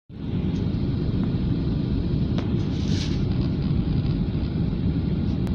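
Steady low rumble of engine and airflow noise inside a jet airliner's cabin, heard at a window seat on the approach to landing. A short hiss comes about three seconds in.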